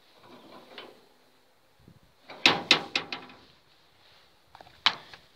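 Padlock rattled on the hasp of a locked steel garage door: a quick run of sharp metallic clanks about two and a half seconds in, and one more clank near the end.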